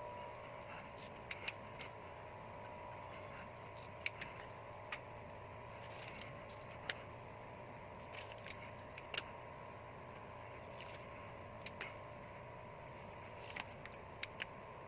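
Scattered light clicks and taps at irregular intervals, about a dozen, over a steady background hum.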